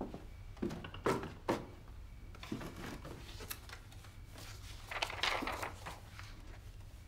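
A few footsteps, the sharpest two about a second in, then a sheet of paper rustling about five seconds in as it is taken from a stack and laid on a desk.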